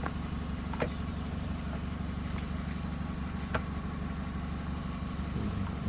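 An engine idling steadily, with a couple of light clicks.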